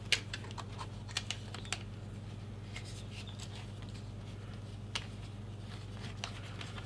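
Small parts of a smartphone lens kit clicking and tapping as a clip and lens are handled and fitted together: scattered sharp clicks, several in the first two seconds and a few more spread later, over a steady low hum.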